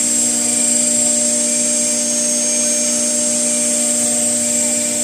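4-axis CNC router running steadily as it engraves, with a constant high-pitched whine over a lower steady hum and a faint tone that repeats about once a second.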